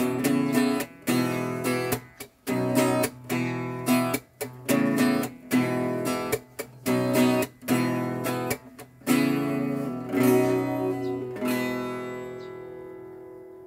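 Acoustic guitar strummed in a steady rhythm, the chords cut short by quick stops, as the closing bars of a song. About ten seconds in, a final chord is struck and left to ring, fading away over the last few seconds.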